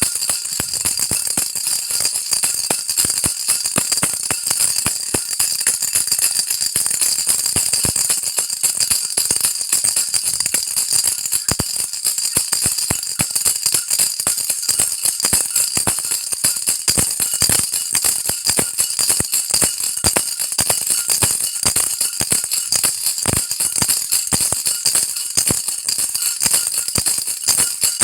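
A baby rattle shaken without pause: a dense, high-pitched rattling of many small clicks, steady in loudness throughout.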